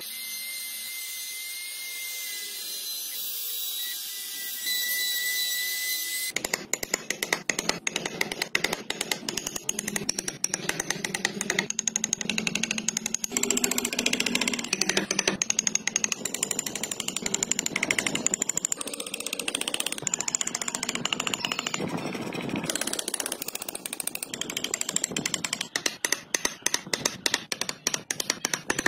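Wood being worked with carving tools: a steady hiss with a thin high whine for about the first six seconds, then a long run of rapid, dry clicks and scrapes as the tool cuts and scrapes the wood.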